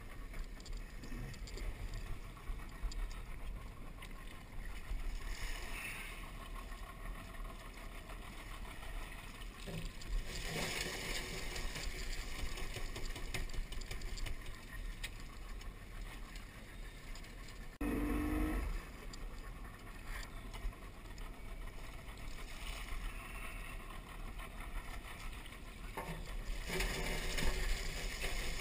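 Small outboard motor running at low speed on an aluminium skiff, with splashing and rattling as wire-mesh crawfish traps are pulled and emptied. A brief louder hum comes about two-thirds of the way in.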